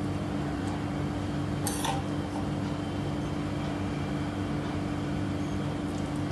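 A single sharp metal clink of a spoon against stainless-steel cookware, about two seconds in, over a steady low hum.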